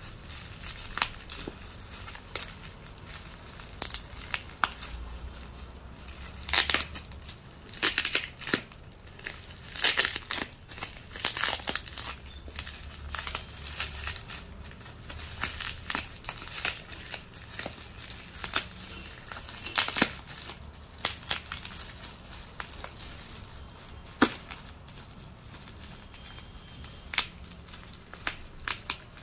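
Plastic bubble wrap being crinkled and pulled open by hand: irregular rustling with many sharp crackles.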